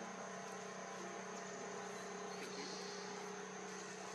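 Steady outdoor ambience: a continuous high insect drone over a steady low hum.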